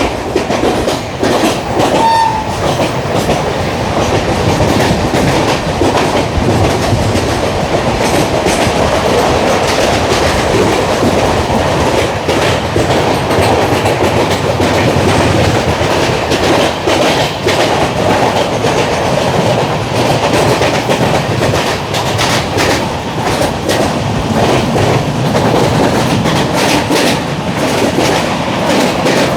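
LHB passenger coaches running at speed: steady wheel-on-rail rumble with a continuous clickety-clack of wheels passing over rail joints. A brief high tone cuts in about two seconds in.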